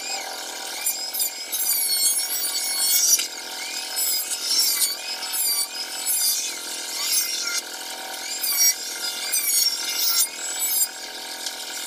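Handheld electric wood planer running with a high whine, its pitch dipping and rising again and again as it is pushed over the wooden door in repeated passes.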